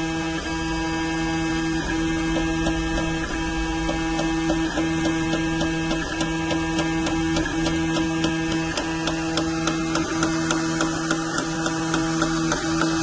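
Cubify 3D printer's stepper motors running as the print head lays down the base of a print: a steady, very futuristic sounding hum that shifts briefly about every second and a half as the head changes direction, with rapid ticking from about four seconds in.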